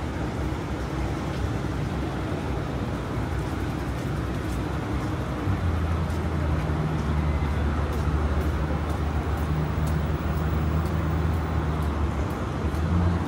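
Street traffic noise, with a vehicle's engine humming low and steady from about five and a half seconds in until near the end.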